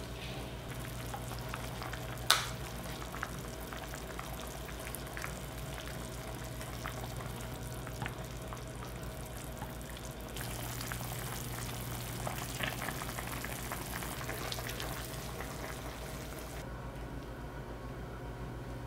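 Food sizzling and crackling in a frying pan over a steady low hum, with a single sharp knock about two seconds in.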